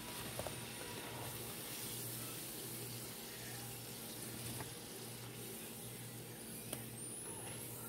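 Steady hiss of hot cooking oil sizzling in the pan after a batch of potatoes has been fried, with a few light clicks of metal tongs against the bowl.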